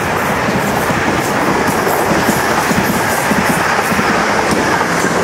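Siemens Desiro electric multiple unit passing close by at speed: a steady loud wheel-and-rail noise with a quick regular clicking of wheels over rail joints.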